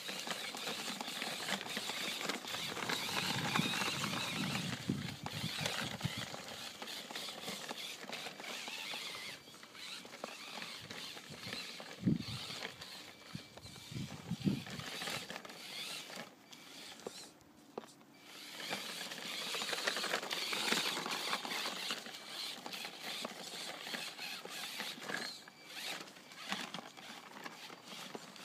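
1:10-scale RC rock crawler driving, its small motor and gears whirring unevenly and swelling louder in stretches. Two low thumps come midway.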